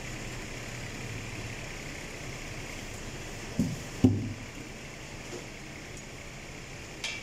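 Steady workshop background hum, with two sharp knocks about halfway through, the second the louder, and a lighter click near the end: parts or tools knocking as a mechanic works in the stripped front end of a car.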